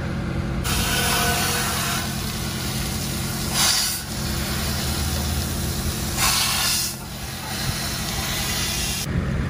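Garden-hose spray wand with a fan nozzle blasting water into a motorhome's radiator stack, a steady hiss of spray and splashing that starts just under a second in and cuts off near the end, surging louder twice. It is washing packed sediment out from between the radiator cores. A steady low hum runs underneath.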